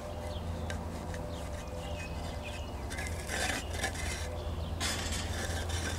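Garden soil being scraped and worked by hand, with two louder scraping strokes about three and five seconds in, over a steady low rumble.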